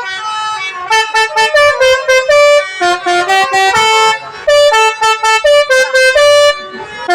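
Basuri 'telolet' multi-tone bus horn playing a quick melody of short toots at different pitches, starting about a second in.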